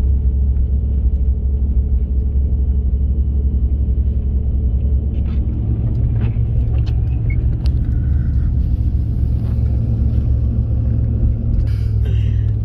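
Steady low rumble of a car driving on a snow-covered road, heard from inside the cabin: engine and tyre noise. A few light clicks and knocks come in the second half.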